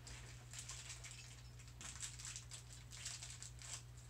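Faint, irregular crinkling and rustling of thin plastic wrapping as a small toy packet is torn open and handled, over a steady low hum.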